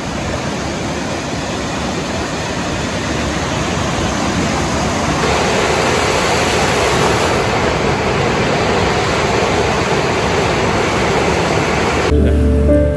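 Lake surf: waves breaking and washing up a sandy beach, a steady rushing. About 12 seconds in it cuts off suddenly and music begins.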